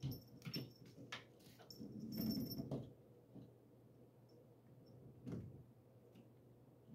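A cat playing with a feather wand toy on a table top: soft thumps and scuffs of paws and toy on the table, with a longer scuffle about two seconds in and another thump near five seconds, plus faint high jingles.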